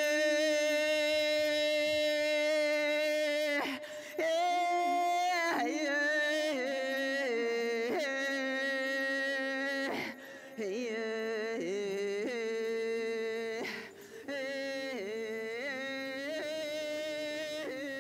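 A woman's voice singing an archaic Finnish forest song without accompaniment: a long held note, then slow phrases with wavering, ornamented pitch, pausing briefly about four, ten and fourteen seconds in.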